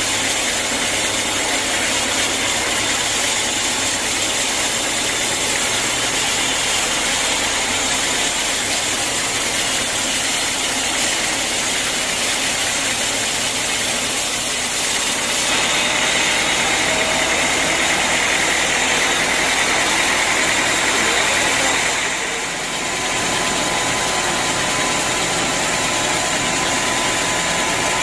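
Sawmill machinery running with a steady mechanical noise that grows brighter for several seconds and dips briefly about three quarters of the way through.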